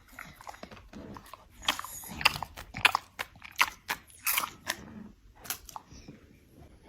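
A dog chewing something crunchy: a run of irregular crunches over a few seconds.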